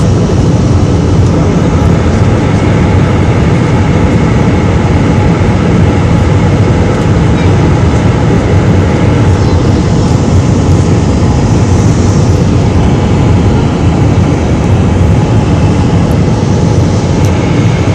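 Steady, loud jet airliner cabin noise: the engines and rushing airflow heard from inside the cabin during the climb after takeoff.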